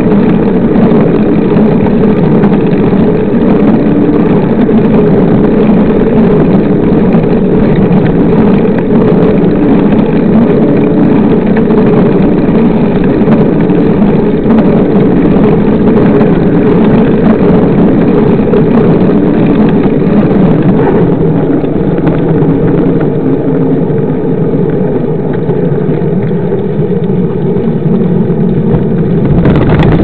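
Steady loud wind and road rumble on a bike-mounted camera's microphone while a mountain bike rolls along a paved road.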